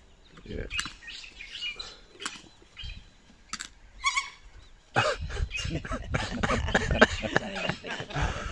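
Animal calls: a few short high chirps in the first half, then from about five seconds in a louder, dense run of calls over rumbling noise.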